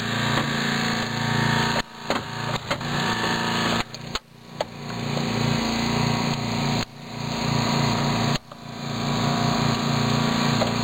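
Small petrol engine of a hydraulic rescue tool's power unit running steadily while a hydraulic cutter works through a car's roof pillar. Its sound dips sharply several times and swells back, and a few sharp clicks of metal come between about two and five seconds in.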